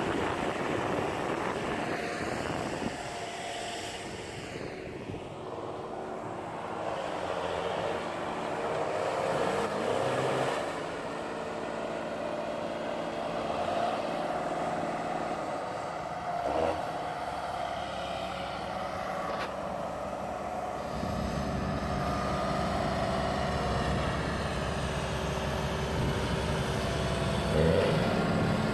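Tractor diesel engines running under load in the mud, the pitch falling and rising as the revs change early on. A heavier low rumble comes in about two-thirds of the way through.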